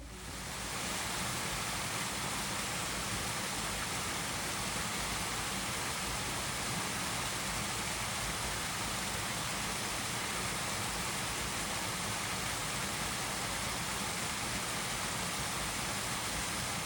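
Rushing water from a rain-swollen waterfall or stream, a steady, even roar.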